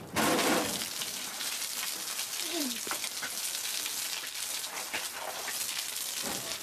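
Jets of water spraying in a steady hiss and splattering onto a man's face and suit. There is a louder burst right at the start as the spray hits him.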